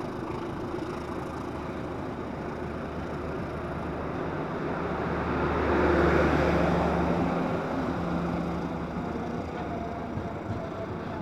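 A Pasundan passenger train rolls past on the next track. Its power car's diesel generator drones steadily and is loudest about six seconds in as the power car goes by.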